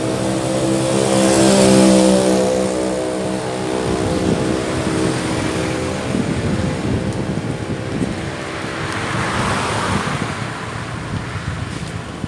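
Road traffic passing close by: a vehicle engine's steady drone swells and fades over the first few seconds, and a second vehicle's rushing tyre noise rises and falls about ten seconds in.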